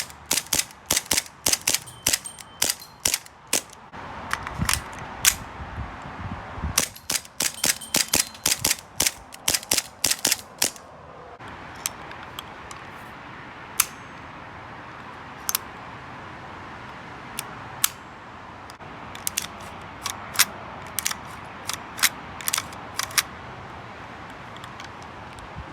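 Cybergun/AW Custom Colt 1911 gas-blowback airsoft pistol firing, its cracks coming in quick strings for about the first eleven seconds. After that the shots are single and spaced, with a few short bursts near the end.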